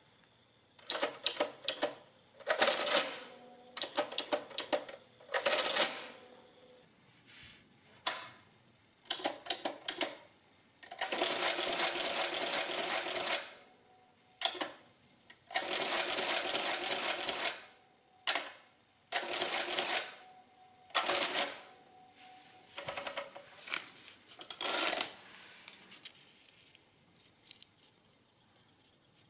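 Underwood 300R electric printing adding machine running cycle after cycle: keys clacking, then the motor-driven mechanism clattering as it adds and prints each line on the paper tape. Twice it runs on for a couple of seconds, cycling without a break as it repeats an addition to multiply.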